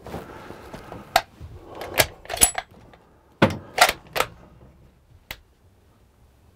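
Bolt-action rifle being handled and its bolt worked after the shot: a quick series of sharp metallic clicks and clacks, about seven, then it goes quiet.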